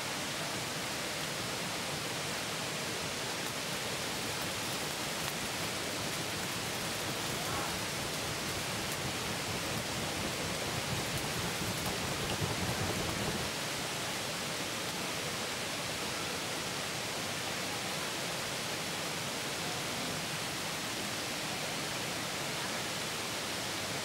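Steady, even hiss of outdoor background noise, with a low rumble swelling for a few seconds around the middle.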